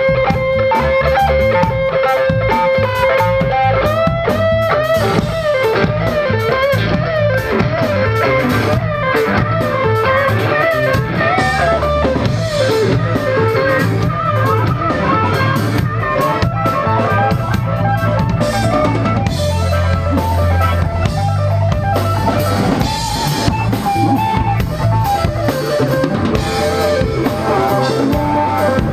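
A live band playing: a Stratocaster-style electric guitar leads, holding one long note, then playing notes that bend and waver, over a drum kit and a low bass line.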